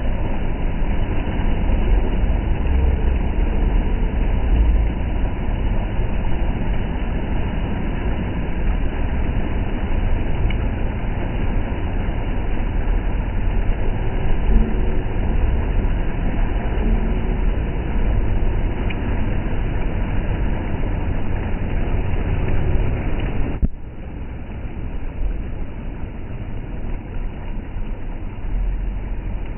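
Heavy rain and rushing water: a steady, dense rushing noise with a strong low rumble, which drops abruptly to a quieter level about 24 seconds in.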